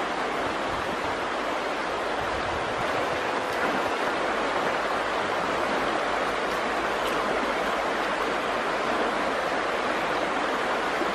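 Shallow river running over rocks: a steady wash of flowing water.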